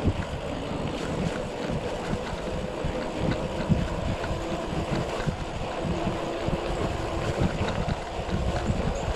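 Wind noise on an action camera's microphone while riding a mountain bike, with a steady rumble and irregular low knocks from the ride.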